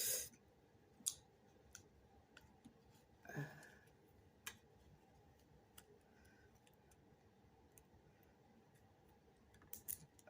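Faint, scattered small clicks of a bracelet being handled and fastened on a wrist, with one slightly louder short sound about a third of the way in.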